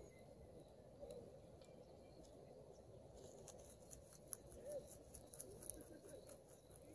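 Faint, crisp clicking of a rabbit chewing leaves close up, in a run of small bites about halfway in, over near-silent outdoor background.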